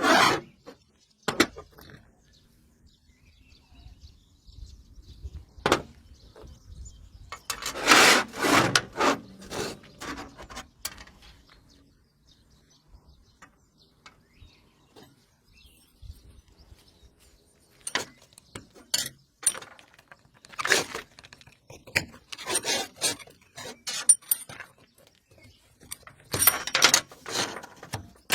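Hand tools and parts being handled: irregular clicks, clinks and rubbing or scraping, in clusters with quiet gaps between.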